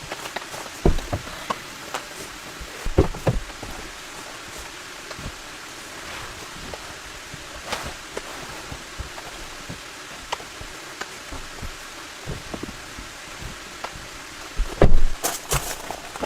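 Steady rain hiss with scattered sharp knocks and taps, including a louder cluster of thumps near the end.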